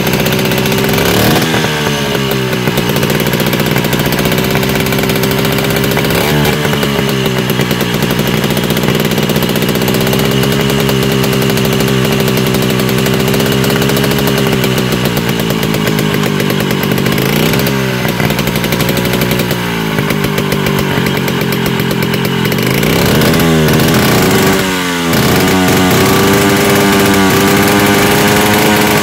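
Vespa scooter's two-stroke engine revved hard and held at high revs, with several quick drops and climbs in pitch, clustered near the end where it gets a little louder.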